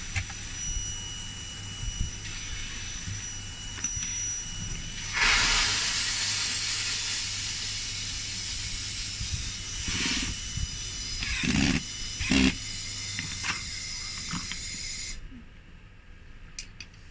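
A steady hiss starts about five seconds in, runs for about ten seconds and cuts off suddenly. A few short knocks sound toward its end, over a low hum.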